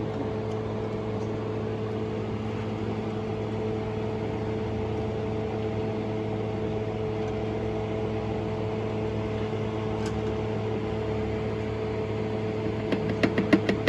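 A machine running with a steady, even hum that holds one pitch throughout. A quick run of sharp clicks comes near the end.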